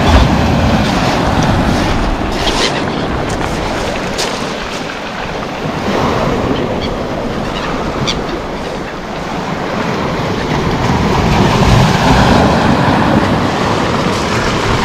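Sea surf breaking and washing over a pebble beach, mixed with wind buffeting the microphone. The rush of the waves fades somewhat mid-way, then swells again.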